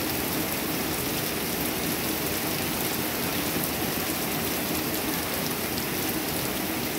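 Heavy rain pouring steadily onto a pond and a wooden deck, a dense even hiss with faint drops ticking close by.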